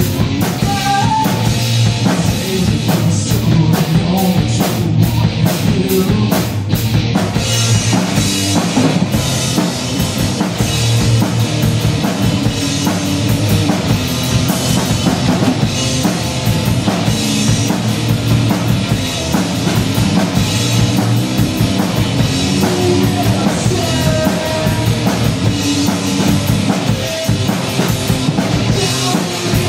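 Punk rock band playing live: a loud electric guitar and a drum kit in an instrumental passage with no singing. Sharp, evenly spaced cymbal strokes drive the first several seconds, then the drums open into a denser cymbal wash.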